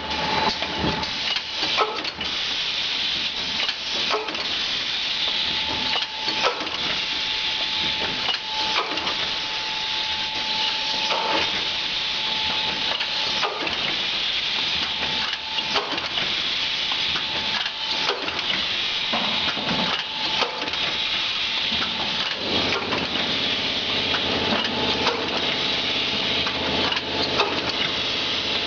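Rotary turntable cup filling and sealing machine running: a steady mechanical hiss with a sharp knock about every two seconds as the machine cycles through its stations. A faint steady tone runs through the first half, and a low hum comes in about two-thirds of the way through.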